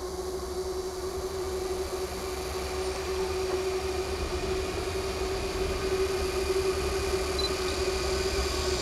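GE Dash-9 diesel locomotive hauling a loaded iron-ore train, its engine running with a steady drone over a low rumble, growing gradually louder as it approaches.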